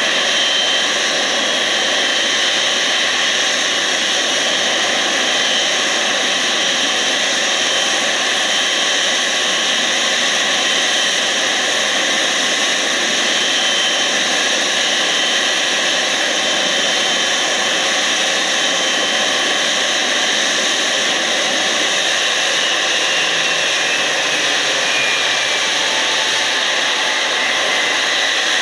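A Boeing 777's twin jet engines running at taxi idle: a steady loud roar with a high whine in it. Near the end the whine falls in pitch as the aircraft stops at the gate.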